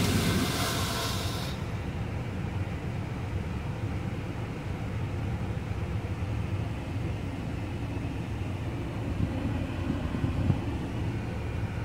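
Truck-wash water spray hissing against the cab's windshield, heard from inside the cab, cutting off suddenly about a second and a half in. A steady low rumble continues underneath.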